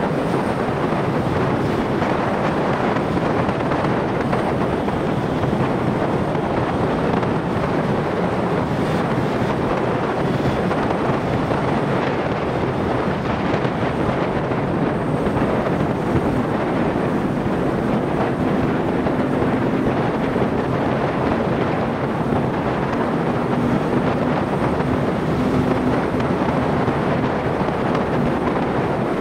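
Steady rush of wind on the microphone of a motorcycle riding at road speed. From about halfway in, a faint steady engine note shows under it.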